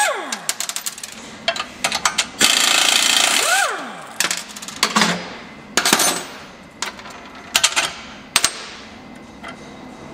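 Air impact wrench spinning bolts out, winding down with a falling whine at the start, then running again for about a second and a half from about two and a half seconds in and whining down again as the trigger is released. After that, scattered metal clicks and clinks of bolts, nuts and steel parts being handled and set down.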